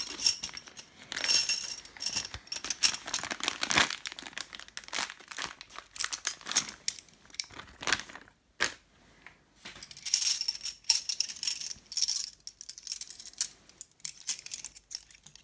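A plastic zip-lock bag crinkling as it is opened and handled, with the aluminium tent stakes inside clinking against each other. The handling pauses briefly a little past the middle, then the bag rustles and the stakes clink again as they are pulled out.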